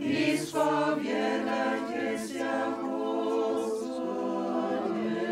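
Choir singing a cappella, several voices holding long chords in harmony, with brief 's' sounds from the sung words three times.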